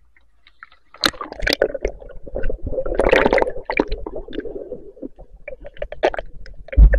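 Muffled underwater bubbling and gurgling with many sharp clicks as a spearfisher ducks under a river with a speargun, heard through the submerged camera. It starts about a second in, and a strong low thump comes near the end.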